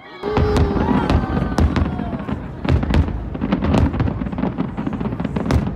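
Fireworks going off in quick succession: a dense run of bangs and crackling that starts suddenly a moment in and keeps going.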